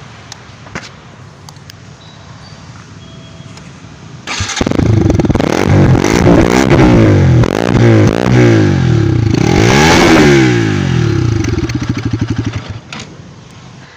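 Bajaj Pulsar RS 200 BS6's single-cylinder engine starting about four seconds in, then revved in several blips that rise and fall, dropping away near the end. The owner finds its exhaust note louder than the BS4 model's but lacking its beat.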